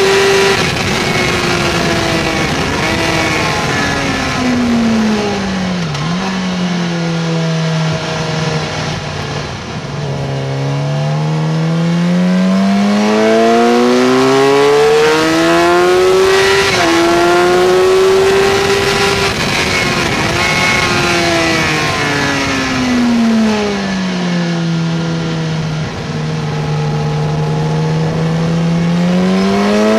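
Suzuki GSX-R 750's inline-four engine, heard from on the bike at speed. The engine note falls over the first several seconds as the rider brakes and shifts down for a corner, then rises through the gears with a short dip at a gear change. It falls again into a slower corner and starts to climb once more near the end.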